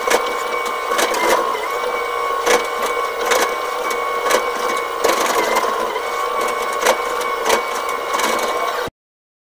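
Hydraulic excavator heard from inside its cab, running with a steady whine while the bucket spreads and levels loose soil, with irregular knocks and clunks from the bucket and its linkage about once a second. The sound cuts off abruptly near the end.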